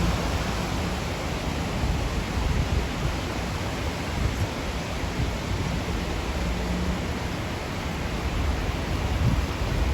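Steady rushing noise of storm-swollen creek water, with a fluctuating low rumble of wind on the microphone.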